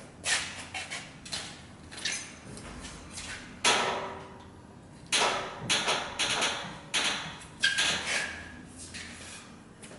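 A series of irregular metallic clanks and knocks, about a dozen sharp strikes, some with a short ringing tail, as the heavy 1969 Kozelsky equatorial telescope mount is shifted and swung on its hoist.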